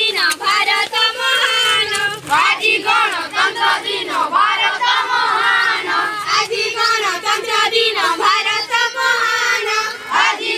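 A crowd of schoolchildren chanting loudly in unison, many high young voices together.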